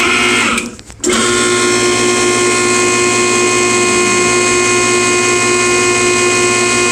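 K501 hydraulic hose crimper's pump motor running as it crimps a fitting onto the hose: a loud, steady whine made of several tones. It starts, drops out briefly just before a second in, then starts again and runs evenly.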